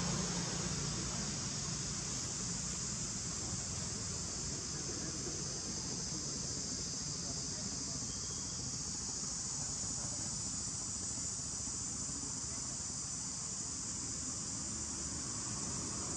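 Steady, high-pitched chorus of insects, one continuous drone that doesn't break or change.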